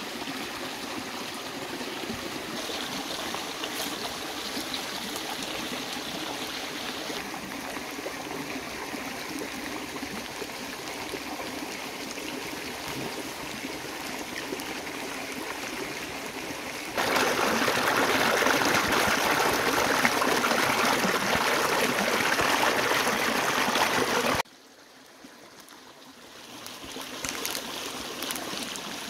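Frog pieces deep-frying in hot oil in a wok: a steady sizzle that gets louder for several seconds past the middle, drops away suddenly near the end, then builds back up.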